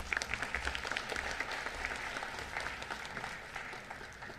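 Audience applauding, the clapping thinning out and fading near the end.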